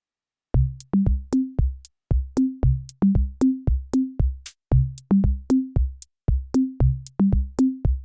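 Electronic intro music: a drum-machine beat with deep kick drums and sharp clicks, starting about half a second in.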